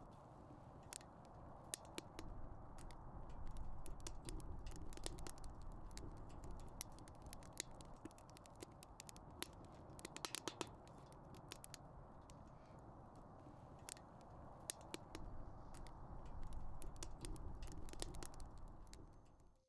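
Small fire burning, a steady low rush with frequent sharp crackles and pops; it cuts off abruptly near the end.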